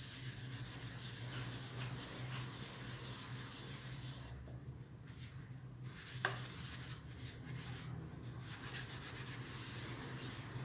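Foamy sponge scrubbing an aluminium pot lid: a rapid, scratchy rubbing made of many quick strokes, easing off briefly about halfway, with one sharp tap a little past the middle.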